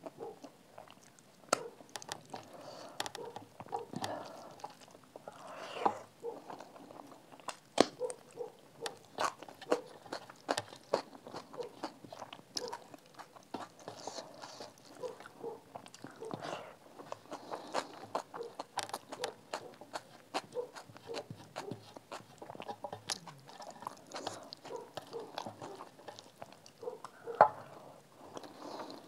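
Close-up eating sounds: chewing and lip smacking of rice and dal eaten by hand, with irregular sharp clicks and occasional crunches.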